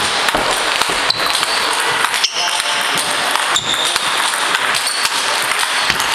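Table tennis ball clicking sharply off hardbat rackets, which have hard pimpled rubber and no sponge, and off the table in a fast rally. The hits come at an uneven pace over steady background noise.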